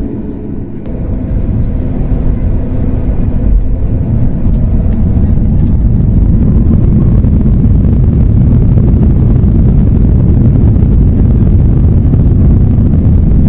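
Boeing 737 MAX 8's CFM LEAP-1B jet engines spooling up to takeoff thrust, heard from inside the cabin. It is a deep rumble that builds over the first few seconds and then holds loud and steady as the aircraft accelerates down the runway, with a few faint clicks and rattles above it.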